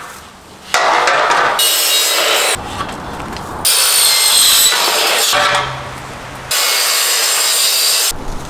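Makita sliding compound mitre saw cutting aluminium decking boards to length: three loud cuts in quick succession, the middle one with a high ringing whine from the blade in the metal.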